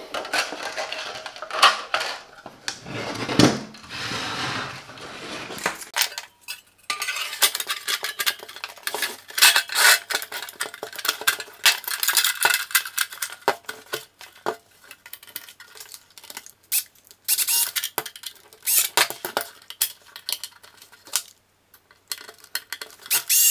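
Plastic and metal casing of an inverter welder being handled and fitted back together: a steady run of clicks, knocks and light rattles, with scraping in the first few seconds.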